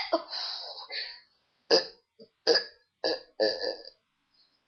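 A person burping deliberately: a few short burps in quick succession, each under half a second, about a second apart.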